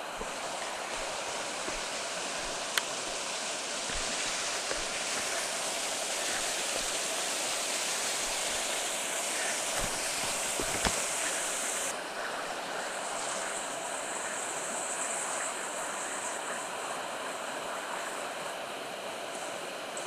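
A high, wide waterfall running, its falling water making a steady rush of noise. Two brief sharp clicks stand out over it, and about twelve seconds in the rush loses some of its hiss.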